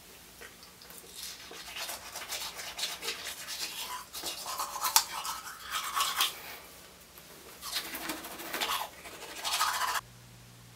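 Manual toothbrush scrubbing teeth in quick back-and-forth strokes, with a few short pauses, stopping suddenly near the end.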